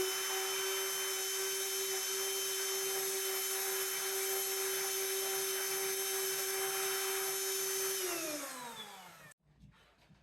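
Trim router motor running at a steady high whine, then switched off about eight seconds in, its pitch falling as it spins down to a stop.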